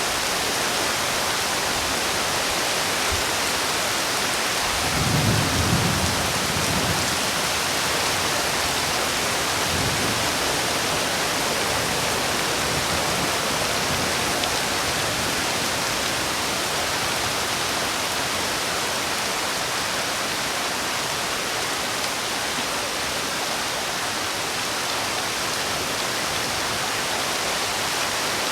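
Heavy rain falling steadily, with a low rumble of thunder about five seconds in and a fainter one around ten seconds.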